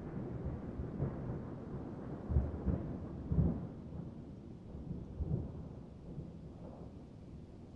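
Thunder from a recorded thunderstorm soundtrack rolling and rumbling low, swelling a few times in the middle and slowly dying away.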